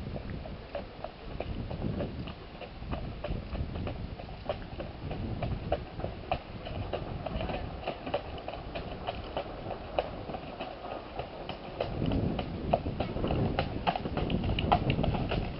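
Hooves of a horse pulling a carriage clip-clopping on a gravel lane, getting louder as it approaches, most of all in the last few seconds.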